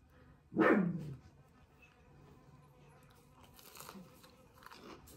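Faint crunching of a bite into a crisp deep-fried lentil fritter (gateau piment) near the end. It follows a short voice sound with a falling pitch about half a second in.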